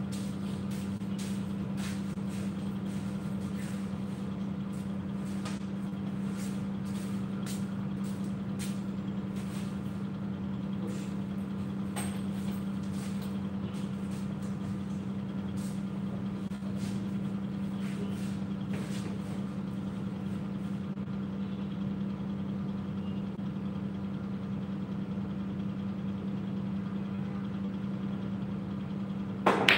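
Steady low machine hum, like an air conditioner or cooler running, with faint scattered ticks. Near the end, a sharp crack as a cue strikes the cue ball and the balls knock together.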